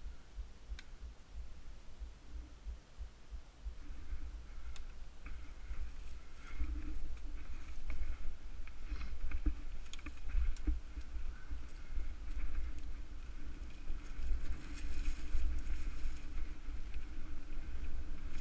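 Mountain bike ridden along a dirt and leaf-covered singletrack: wind buffeting the camera microphone with a gusty low rumble, tyres rolling over the trail, and the bike rattling and clicking over bumps. Quieter for the first few seconds, then louder from about four seconds in as the ride picks up speed.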